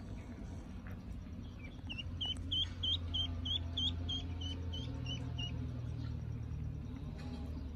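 Duckling peeping: a run of about a dozen short, high peeps, about three a second, starting some two seconds in and stopping around five and a half seconds, over a steady low hum.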